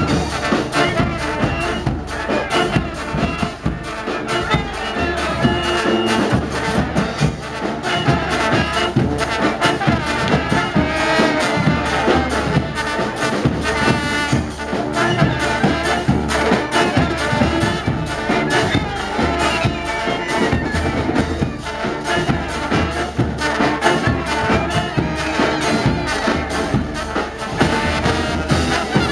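Brass marching band playing live: horns carry the tune over drums and sustained low bass notes, without a break.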